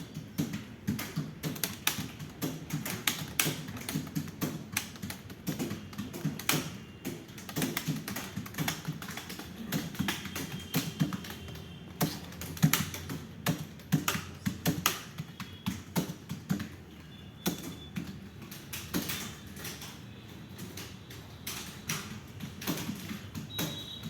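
Fast typing on a computer keyboard: a dense, uneven run of key clicks, several a second.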